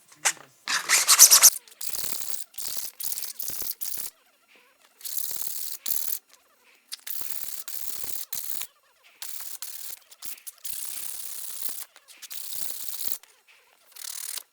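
Hand sanding of 3D-printed plastic parts with 120-grit sandpaper. The rasping strokes come in runs of a second or so with short pauses between, and the loudest run comes about a second in.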